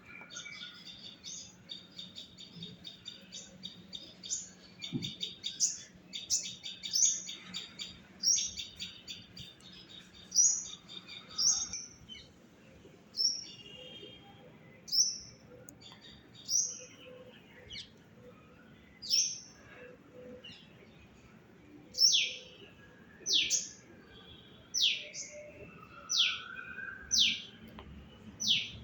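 Birds chirping: a fast, dense twittering for about the first twelve seconds, then loud, sharp chirps that slide downward in pitch, repeated every second or so.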